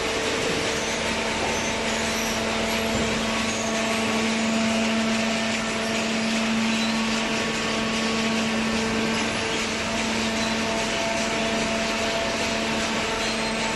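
Automatic-tie cardboard baler running: a steady machine hum with several held tones over constant mechanical noise.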